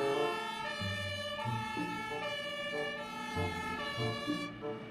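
An electronic tune of steady notes stepping up and down between several pitches, over a short low bass note that comes about once a second; it cuts off just before the end.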